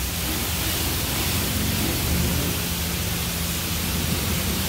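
Self-serve car wash pressure wand spraying soapy water onto a car: a steady hiss of high-pressure spray.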